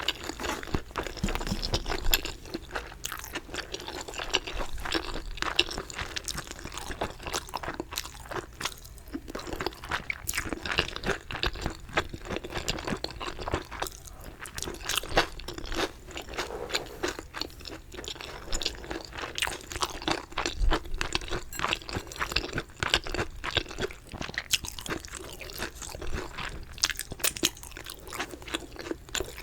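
Chicken being bitten and chewed close to the microphone: a dense, irregular run of crunches and clicks.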